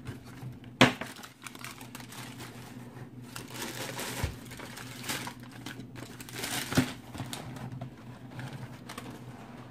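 Tissue paper crinkling and rustling as a sneaker is wrapped and packed back into a cardboard shoebox. Two sharp knocks from the box being handled stand out, the louder about a second in and another near seven seconds.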